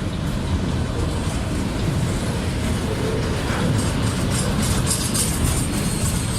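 Bi-level autorack freight cars rolling past, a steady low rumble with wheel clatter. From about four seconds in there is a run of high rattles and squeaks, and near the end a thin high squeal.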